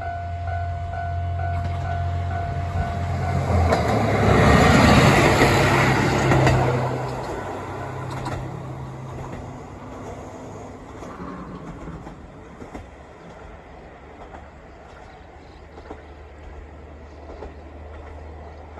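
KiHa 54 diesel railcar passing over a level crossing. The crossing's warning alarm rings steadily for the first few seconds, then the railcar's engine and wheels grow loud, peak about five seconds in with clacks over the rail joints, and fade slowly as it draws away.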